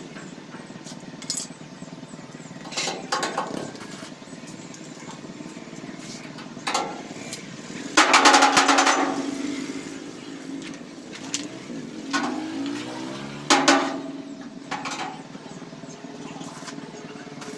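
Sheet metal of a tricycle sidecar body being worked by hand: scattered metal knocks and clanks, with a longer clattering rattle that leaves the panel ringing about eight seconds in, and another sharp clank with ringing near fourteen seconds.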